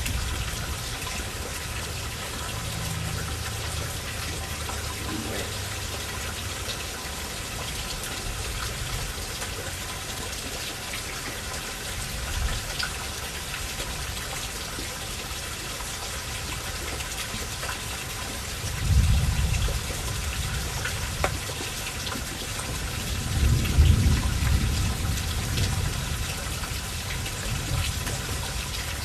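Steady rain falling, a dense even hiss with scattered drips, and two short low rumbles about two-thirds of the way through and near the end.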